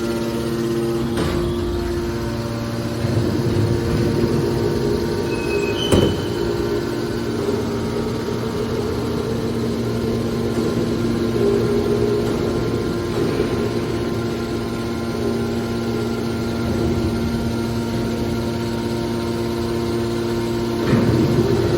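Hydraulic scrap metal baler running, its pump and motor giving a steady hum, with a few sharp metallic knocks about a second in, about six seconds in and near the end.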